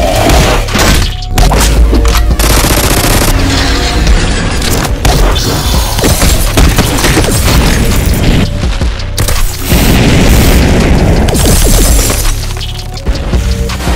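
Loud background music with a heavy bass line, overlaid with fight sound effects: repeated booming impacts and rapid volleys of hits.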